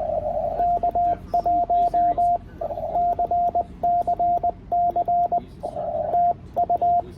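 Morse code from a ham radio transceiver on CW: a single steady tone keyed on and off in quick dots and dashes, grouped into characters, with short patches of narrow-band receiver hiss between the groups.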